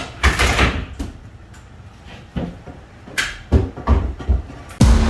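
A series of separate knocks and thumps, like things being handled and set down, with a short rushing, scraping noise about half a second in. Loud music starts just before the end.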